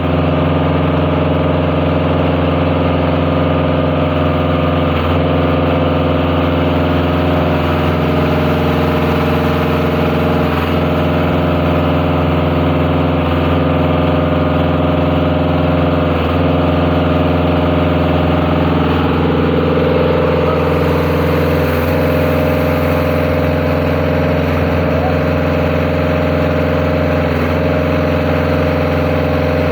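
Concrete pump's diesel engine running steadily under load, with a faint knock recurring about every three seconds as the pump cycles.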